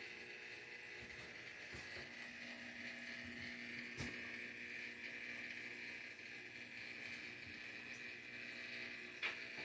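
Faint steady room hum made of several fixed tones over a light hiss, with a soft click about four seconds in and another near the end.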